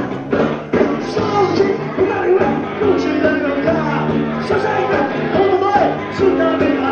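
Rock band playing live, with a lead singer over the band and drums hitting regularly.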